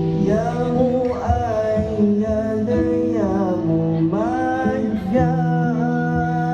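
Music: a song with a voice singing a melody over steady instrumental accompaniment with a beat.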